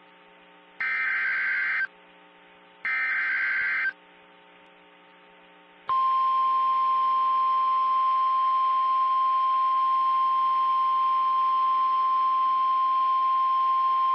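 Two loud one-second bursts of screeching data tones from a Specific Area Message Encoding (SAME) alert header, then a steady single-pitch alarm tone starting about six seconds in: the 1050 Hz NOAA Weather Radio warning alarm tone, which signals that a warning message follows.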